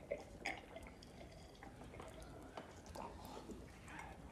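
Quiet hall with faint sips of wine and small clinks of metal goblets as a crowd of men drink a toast.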